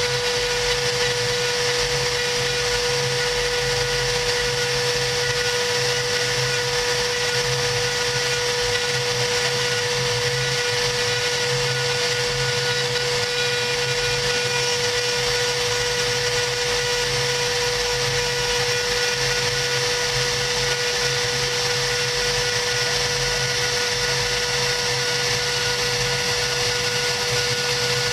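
CNC router spindle running at constant speed while its engraving bit cuts a design into 3 mm cardboard: a steady high whine over a hiss, with no change in pitch.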